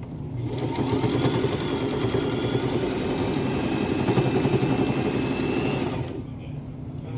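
Electric sewing machine running a seam at steady speed, starting about half a second in and stopping about six seconds in.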